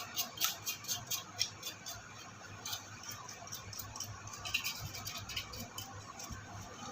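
A brush scrubbing a computer processor's heatsink cover in quick, light scratchy strokes, a few a second, easing off midway and picking up again near the end.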